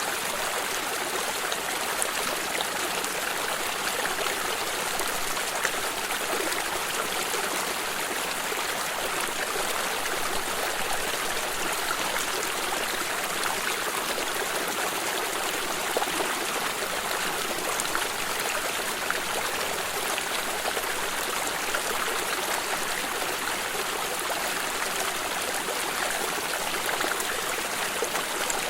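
Water stream running steadily, a continuous rushing and trickling over rocks with no pauses or changes.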